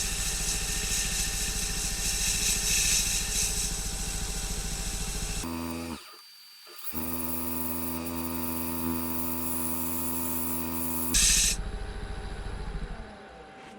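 A wood lathe spinning a poplar lampshade while sandpaper is held against the inside, giving a steady hiss over the motor hum. About six seconds in the hiss stops and the motor's steady hum carries on; a short burst of sanding comes again near the end, and then the sound fades as the lathe winds down.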